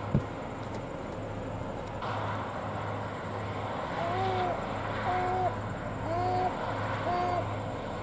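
New Holland CR9040 combine and a New Holland T7 tractor running steadily, heard from a distance while the combine unloads soybeans on the go into the grain cart. A short thump comes just after the start, and from about halfway four short, even-pitched calls sound about a second apart.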